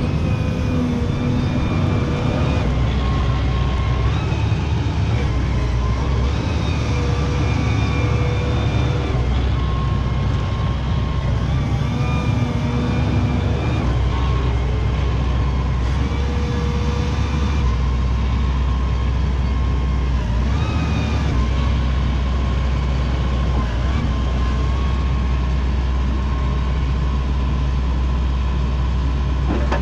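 Hitachi ZX140W-3 wheeled excavator's diesel engine running steadily as the machine drives and turns, with a high whine that comes and goes every few seconds.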